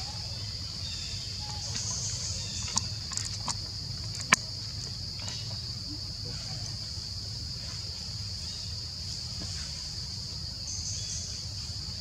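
Steady high-pitched drone of forest insects over a low rumble, with a few sharp clicks about three seconds in, the loudest a little after four seconds.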